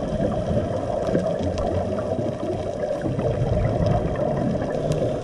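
Underwater ambience picked up by a camera in its waterproof housing: a steady, muffled rumble of moving water, with a few faint clicks.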